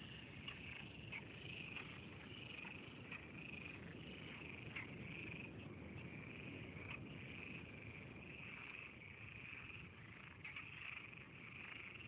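A chorus of frogs calling continuously, a dense high-pitched trill with single sharper calls standing out now and then, over a steady low rumble.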